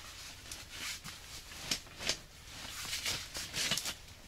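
Rustling and scattered crackles and light knocks of a person moving about and handling gear inside a tent, clothing and the straw-covered floor rustling, with several sharper clicks in the second half.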